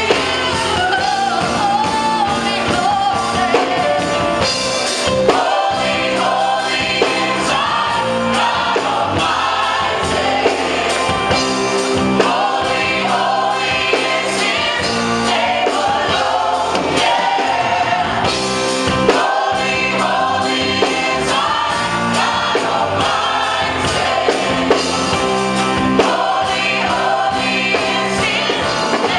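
Live gospel praise-and-worship music: a group of voices singing with a band, over a steady beat.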